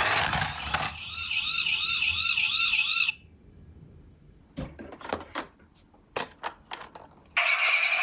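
Battery-powered toy ambulance's electronic siren warbling quickly up and down, about two to three swoops a second, then cutting off suddenly about three seconds in. A few light plastic clicks and knocks follow, and near the end another toy ambulance's electronic sound starts up loudly.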